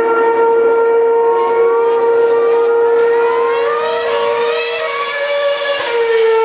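Formula One car engines screaming at high revs: one holds a steady high note while another rises in pitch again and again as it accelerates up through the gears, until about six seconds in.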